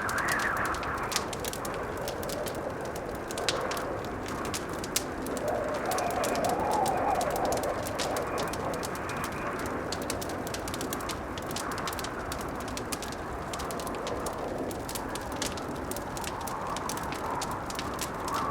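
Blizzard wind howling in slow swells over a wood fire crackling and popping. The strongest gust comes about six seconds in.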